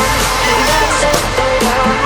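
Background music with a heavy electronic bass beat.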